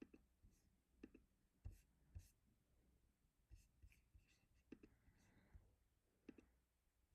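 Faint, irregular clicks of a computer keyboard and mouse, single and paired strokes a second or so apart with short pauses, over a quiet room.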